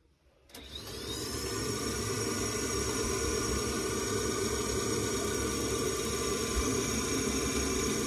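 Baxi gas boiler's fan starting after a reset, as the boiler tries to light with a newly fitted spark generator: a click about half a second in, then a whine that rises as the fan spins up and levels off into a steady run with a hum and hiss.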